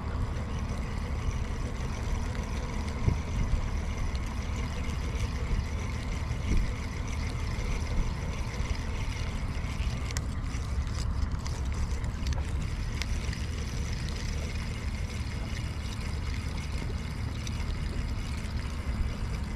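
Steady wind rumbling on the microphone at the water's edge, with small waves washing against the shoreline rocks and a few faint knocks.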